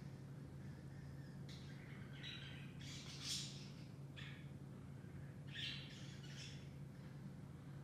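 Birds calling in short, scattered high chirps, the loudest about three seconds in and again near six seconds, over a faint steady low hum.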